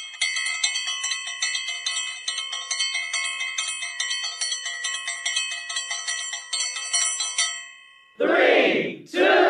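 Small metal bells or chimes tinkling rapidly, many quick strikes over a steady ring, stopping about seven and a half seconds in. Near the end a loud rushing sound starts.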